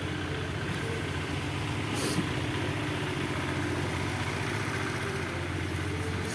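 Steady low hum of an idling engine, with a brief hiss about two seconds in.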